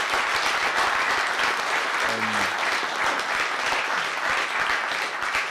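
Audience applauding steadily, many hands clapping at once; a brief voice is heard about two seconds in.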